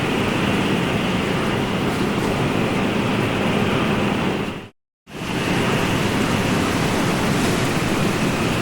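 Ocean surf sound effect: a steady wash of waves, which fades out to a moment of silence about five seconds in and then fades straight back in.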